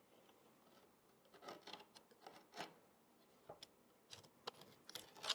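Faint scraping and rubbing on an old wooden sash window as a stuck part is worked at to free it, in a few short scrapes and small clicks that come more often in the second half.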